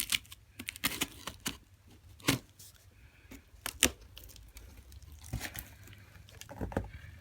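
A knife cutting through packing tape on a cardboard shipping box, then the tape and flaps torn open, with irregular crackles and scrapes of cardboard.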